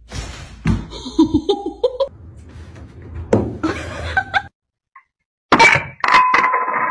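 A person laughing, across a string of short clips with abrupt cuts between them.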